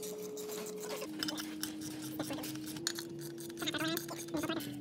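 Irregular metallic clicks and clinks of a ratcheting torque wrench on the clutch pressure plate's cover bolts, tightened to half torque on the first pass. Under them runs a held music note that changes pitch every second or two.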